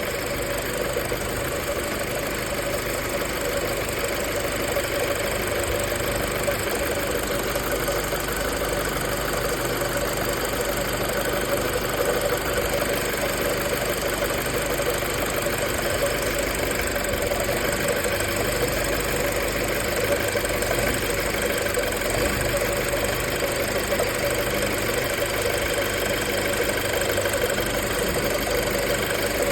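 Audi A4 B7 engine idling steadily. The owner blames a faulty engine wiring harness for the car stalling and idling erratically.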